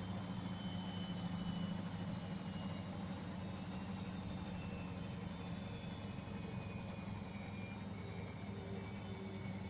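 Beko washing machine on its spin cycle, with the drum and motor running as a steady hum and a thin high motor whine that drifts slowly down in pitch.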